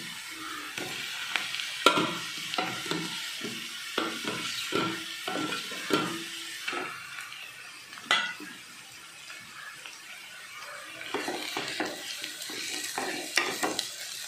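Wooden spatula stirring and scraping fried onion and potato masala in a nonstick kadai, with light sizzling of the frying underneath and a few sharper knocks against the pan.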